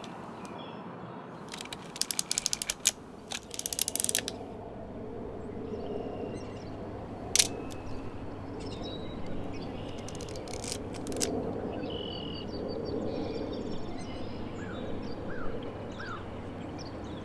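A film camera being worked: its advance lever ratchets in two quick runs of clicks about two and three and a half seconds in, and there is a single shutter click about seven seconds in. Birds chirp faintly over steady outdoor ambience in the second half.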